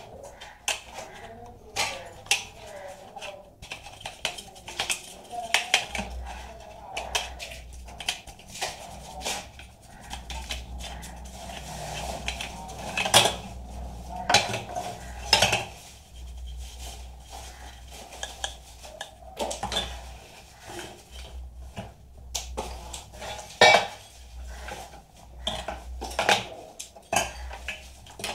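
Irregular metallic clinks, clicks and knocks from a desktop PC power supply's sheet-metal case, its cooling fan and screws being handled and worked on with a screwdriver.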